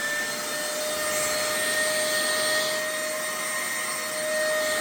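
Brigii cordless 3-in-1 mini handheld vacuum running at full speed: a steady high-pitched motor whine over a rush of air, just settled after spinning up.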